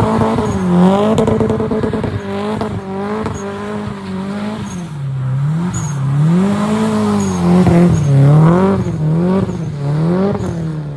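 Car engine revved up and down over and over while the car slides through donuts on snow, with a long rise and fall in the middle and quicker blips near the end.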